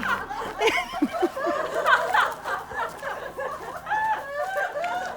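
A person laughing and giggling, in short repeated bouts of pitched laughter.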